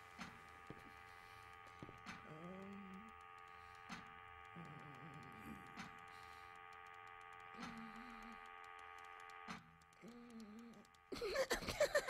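Steady electrical hum of many held tones from a machine, with short warbling, gliding mechanical calls breaking in every few seconds. About eleven seconds in, a much louder burst of rapid clicking and chattering begins.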